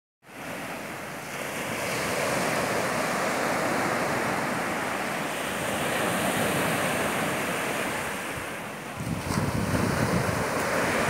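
Small waves breaking and washing up a sandy beach: a steady surf hiss that swells and eases. From about nine seconds in, wind buffets the microphone.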